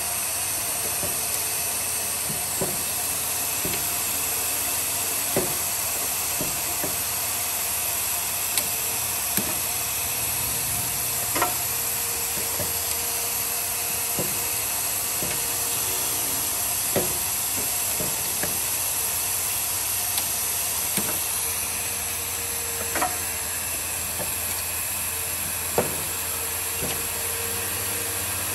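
Pneumatic tip-cutting machine with a rotary index table running: a steady hiss and hum, broken by sharp clicks and clacks every second or so as its air-driven parts move, a few of them louder.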